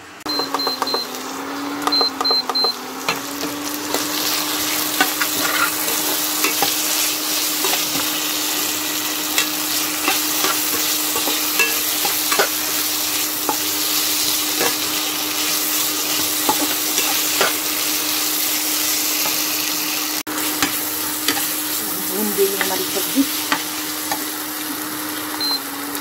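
Boiled potato pieces frying and sizzling in a steel pan while a spatula stirs them, scraping and clicking against the metal. A steady low hum runs underneath, and a few short high beeps sound near the start.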